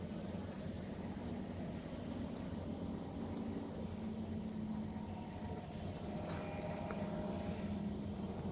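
Insect chirping: short, high, triple-pulsed chirps repeating evenly, about three every two seconds, over a steady low hum.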